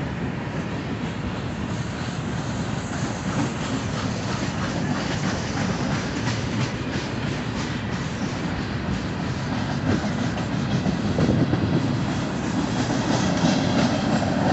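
Freight train cars rolling past: a steady rumble of steel wheels on the rails with rhythmic clicking as the wheels cross rail joints, growing louder about ten seconds in.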